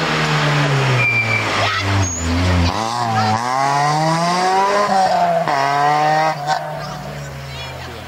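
Rally car engine, an Opel Kadett hatchback, revving hard as it accelerates out of a bend. Its pitch climbs, drops at a gear change about five and a half seconds in, climbs again, and then fades as the car pulls away.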